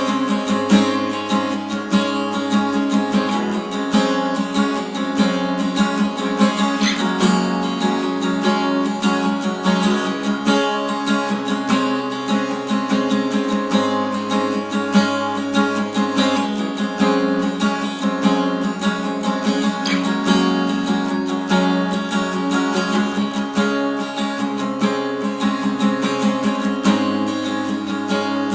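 Acoustic guitar strummed steadily in an instrumental break of the song, with the chords changing every few seconds.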